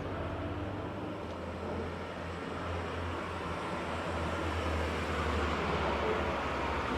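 Road traffic noise: a steady wash of passing vehicles with a low engine rumble, swelling a little after the middle.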